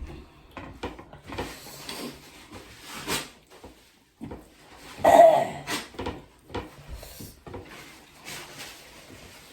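Mealtime eating sounds: scattered clicks and scrapes of hands and plates, with one louder scrape about five seconds in.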